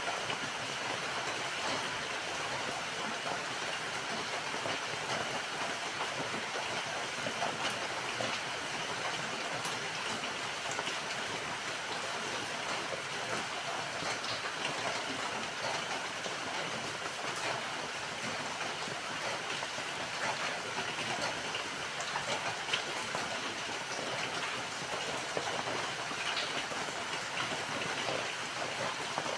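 Steady rain falling: an even hiss with scattered, slightly louder drop ticks.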